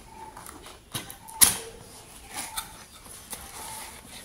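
Cardboard microphone box being opened by hand: light clicks and scrapes of the card as the lid is worked open, with one sharp snap about a second and a half in.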